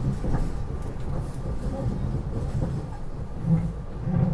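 Steady low rumble of a SEPTA Regional Rail passenger car in motion, heard from inside the car.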